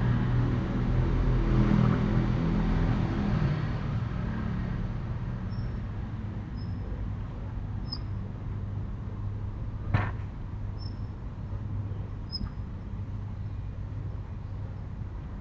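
Outdoor ambience: a passing car fading away over the first few seconds, then a steady low hum with a single sharp knock about ten seconds in and a few faint, short, high chirps.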